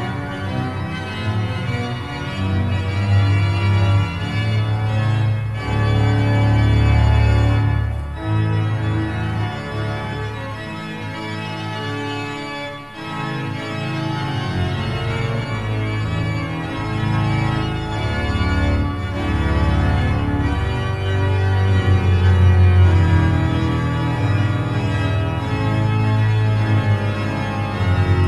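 Pipe organ playing held chords over a deep bass, swelling louder a few times and easing back briefly in the middle.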